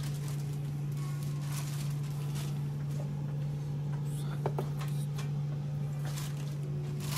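A steady low hum with scattered light clicks, taps and scrapes of utensils and food being handled while taco plates are prepared.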